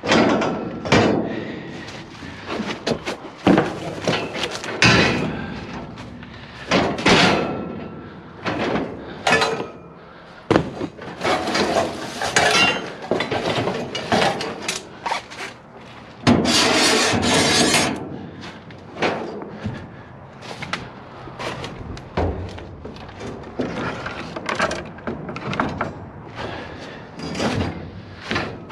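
Pieces of scrap metal clanking and knocking together as they are picked up and handled, with irregular bangs, some ringing briefly, and a longer noisy stretch a little past halfway.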